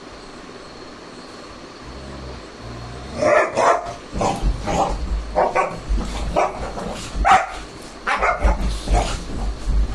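Dog barking in a run of short barks, starting about three seconds in and going on with brief gaps.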